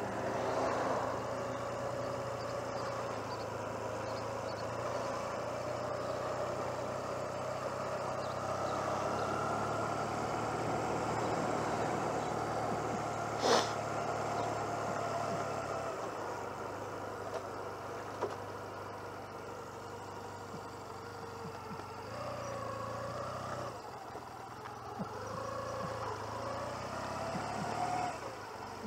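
1996 Honda CMX250C Rebel's small parallel-twin engine running at low road speed. Its note climbs gently through the first half, then eases off about 16 seconds in as the bike slows. A single sharp click comes about halfway through.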